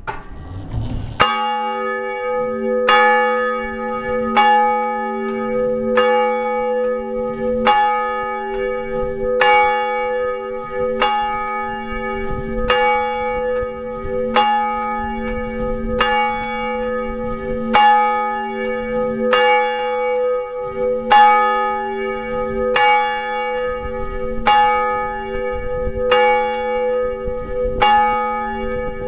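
A single church bell tolling steadily, heard up close from inside the bell tower. It starts about a second in and strikes once about every 1.6 seconds, each stroke's hum ringing on under the next.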